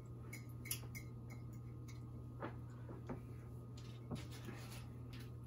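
Faint eating sounds: chewing and a scattered handful of small mouth clicks and crackles from people eating chips and noodles, over a steady low hum.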